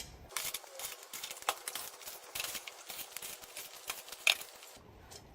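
A rapid, irregular series of clicks and clattering, with one louder click near the end.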